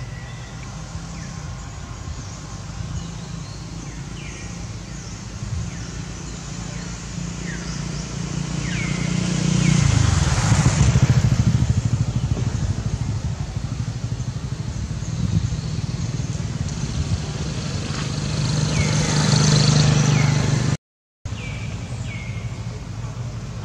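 Motor vehicle engines running, a steady low drone that swells twice as traffic passes, with a few short, high, falling chirps over it.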